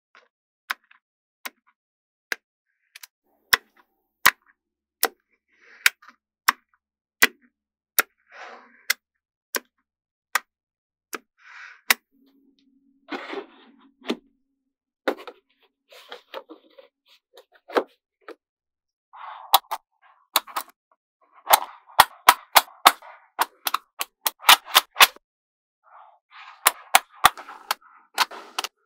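Small neodymium magnetic balls clicking sharply as blocks of them snap together, single clicks coming about every half second. Later come quicker runs of clicks with a rattling sound.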